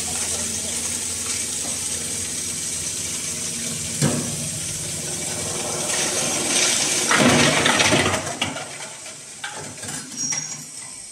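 Belt-driven hammer mill with an electric motor running, grinding lumps of charcoal into powder: a steady hum and rush, with louder rattling surges about four seconds in and again from six and a half to eight seconds. The sound drops off sharply about eight and a half seconds in.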